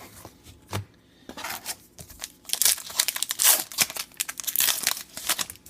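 Trading-card pack wrapper being torn open and crinkled by hand, a run of rustling and tearing bursts that builds about a second in and is loudest in the middle.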